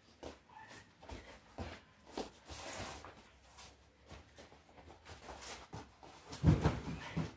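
Feet shuffling and scuffing on a vinyl wrestling mat during live grappling, then a cluster of heavy thuds about six and a half seconds in as a takedown shot drives bodies into the mat and crash pad.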